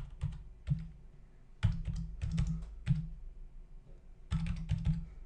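Computer keyboard being typed on in three short bursts of keystrokes with pauses between, as a command is entered.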